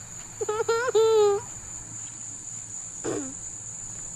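Steady high chirring of night insects. About half a second in, a child's high-pitched voice gives a wordless, wavering whine lasting about a second, and a short falling squeak follows near the end.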